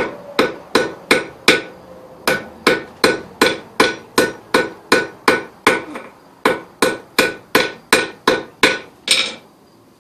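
Blacksmith's hammer striking orange-hot steel on an anvil in a steady rhythm, about three blows a second, each with a ringing note. The hot steel is soft and being shaped. The blows pause briefly about two seconds in and again near six seconds, and stop about nine seconds in.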